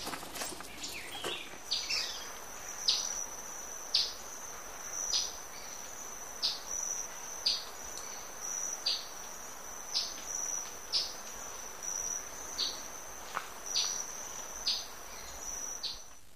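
Tropical jungle insect chorus: a steady, high, thin trill, with short high calls repeating about once a second over it. The trill cuts off near the end.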